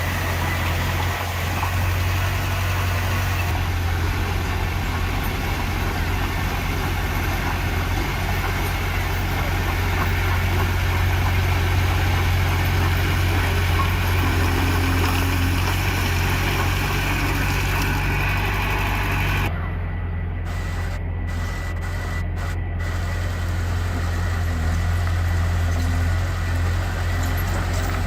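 Heavy diesel construction machinery running steadily with a deep engine hum. About two-thirds of the way through the higher hiss briefly drops away and then returns.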